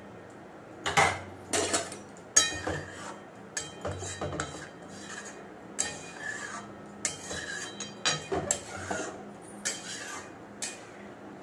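A metal ladle stirring a thick lentil-and-vegetable stew in an aluminium kadai, scraping and clinking against the pan's sides in irregular strikes. Near the end the kadai is lifted off the gas burner.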